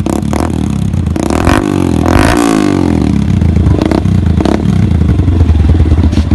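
Suzuki Gixxer SF's single-cylinder engine running loud through a freshly fitted aftermarket SC Project-style slip-on exhaust. The throttle is blipped a few times, with a longer rev rising and falling about two seconds in.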